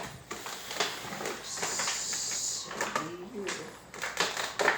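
Toy packaging being handled and opened: scattered crinkles and clicks, with a steady hiss lasting about a second, starting about a second and a half in, like something sliding or tearing.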